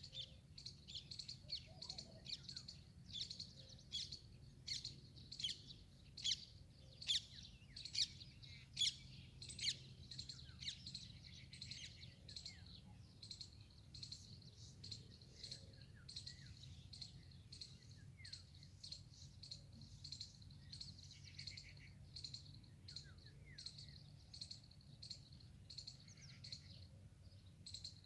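Small birds chirping in many quick short calls, busiest in the first ten seconds, over a steady high insect trill.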